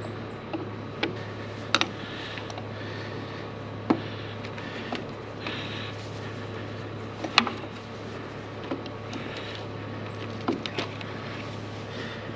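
Scattered sharp clicks and knocks of hand tools and parts being handled while a tractor battery is swapped, over a steady low hum.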